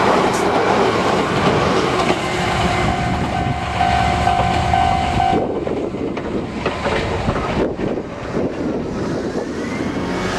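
Izuhakone Railway 3000-series electric train running past, its wheels clattering over the rails. A steady tone sounds for a few seconds before the middle of the passage.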